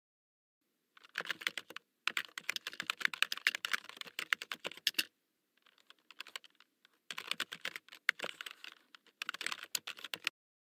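Computer keyboard typing sound effect: rapid key clicks in several bursts separated by short pauses, with a fainter stretch about halfway through.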